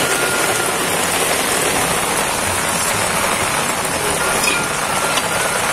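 Heavy rain falling steadily on concrete and tin surfaces, a constant even hiss.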